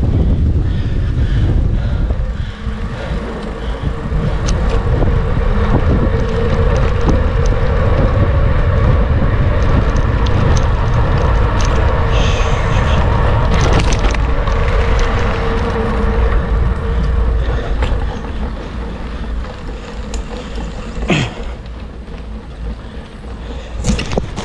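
Wind buffeting the camera's microphone on a bicycle ride, a loud low rumble, with a steady pitched hum from about two seconds in until about sixteen seconds and scattered clicks.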